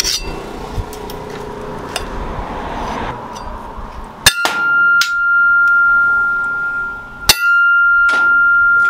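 Leaf-spring steel cleaver chopping metal rod on an anvil: two sharp metallic strikes about three seconds apart, each leaving a long, steady ringing tone.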